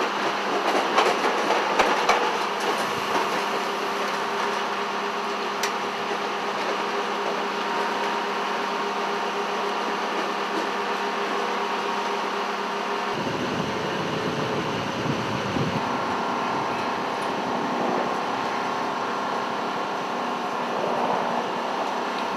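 Steady drone of the MC-130P's four turboprop engines, a constant mechanical roar with a low hum beneath it. The character of the drone changes abruptly about two-thirds of the way through.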